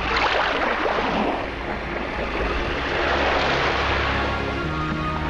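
Harbour ambience: a steady rushing noise over a constant low rumble. Music with held notes comes in near the end.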